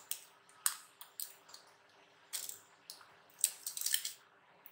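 Handling noise from thin earphone cables and small plastic connectors: irregular short rustles and scrapes as the Sennheiser IE 100 Pro earpieces are pulled off their neckband cable. The busiest stretch is about three and a half seconds in.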